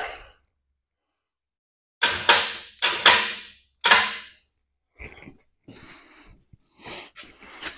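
Steel frame rail knocking against the truck frame as it is worked into alignment: four sharp knocks, each with a short ringing fade, starting about two seconds in, then fainter clinks and rustling.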